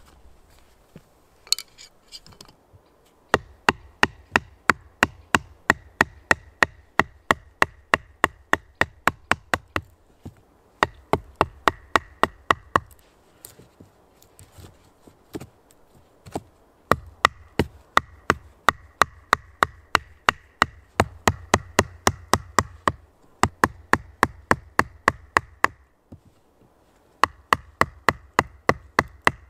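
Carving gouge driven into green birch wood with rapid, even taps, about four a second, in runs of a few seconds with short pauses between, hollowing out a kuksa bowl.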